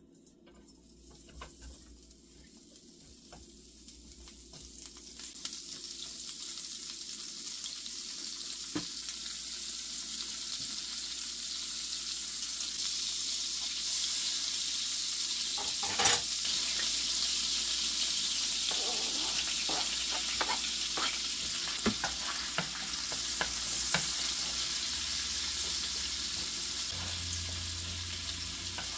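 Butter melting and sizzling in a nonstick frying pan, the sizzle swelling from faint to steady over the first several seconds. A wooden spatula scrapes and taps the pan now and then, with one sharper knock about halfway through.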